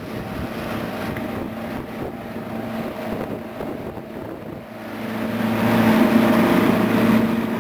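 Outboard motor running steadily as the boat moves, with water and wind noise; it grows louder about five seconds in.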